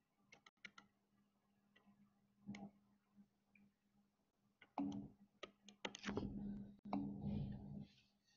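Faint clicks and taps of a stylus on a tablet screen during handwriting. Scattered single taps come first, then a denser run of taps and short scratchy strokes in the second half.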